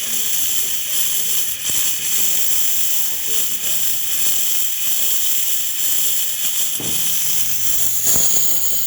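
Steam wand of a DeLonghi PrimaDonna Deluxe espresso machine hissing steadily as steam blows out, with the thermal block coming up to full temperature and pressure. The hiss swells near the end.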